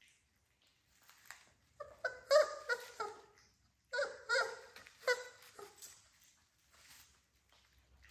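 Three-week-old American Bully puppies whimpering and yelping in short cries, in two clusters about two and four seconds in, then a few faint whines.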